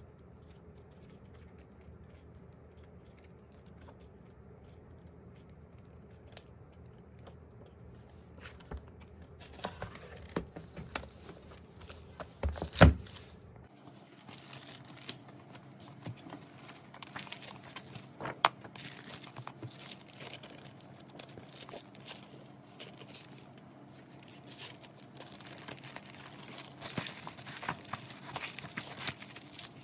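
Paper and plastic wrapping rustling and crinkling as a large photobook and a folded, wrapped poster are handled. There is one loud thump about a third of the way in. The first several seconds hold only a faint hum.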